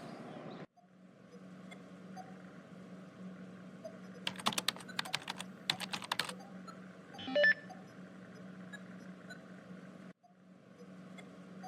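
Computer keyboard typing: a few quick runs of key clicks in the middle, then one short, louder sound, over a steady low hum.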